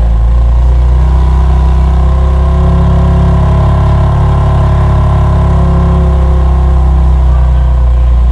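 2019 BMW M2 Competition's twin-turbo straight-six idling steadily, heard at the quad exhaust tips.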